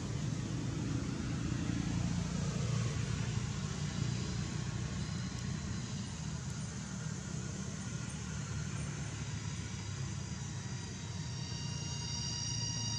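A steady low rumble with a hiss over it, like distant engine noise. A few high steady tones come in near the end.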